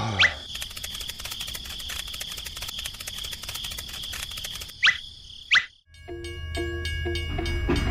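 Cricket chirring sound effect, a fast even trill, for about the first four and a half seconds, followed by two quick rising swoosh effects. Music with a steady percussive beat starts about six seconds in.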